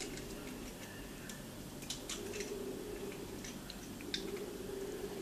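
Light clicks and taps of eggshell as an egg is separated by hand over a glass bowl, the yolk passed between the shell halves: a few scattered clicks about two seconds in and again around four seconds, over a steady low hum.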